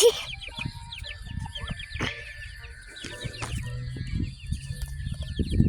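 Young chickens (chicks) peeping continuously: many short, high, downward-sliding peeps in quick succession. Low rustling and bumping runs underneath.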